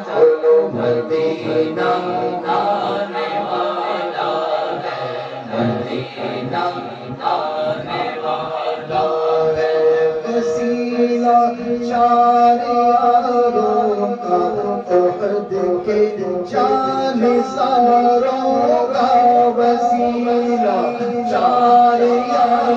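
Men's voices singing a naat together into microphones, with no instruments. Long notes are held beneath the lead melody.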